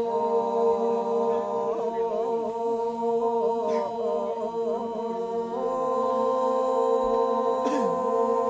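Men's voices chanting the Toraja ma'nimbong unaccompanied: several voices hold a steady drone while a wavering melodic line moves over it, and the drone steps up a little about five and a half seconds in.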